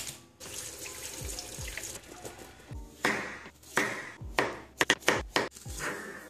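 A chef's knife cutting potatoes and chopping red onion on a wooden chopping board, giving a string of sharp knocks in the second half, over background music with a steady beat. A rubbing noise fills the first two seconds.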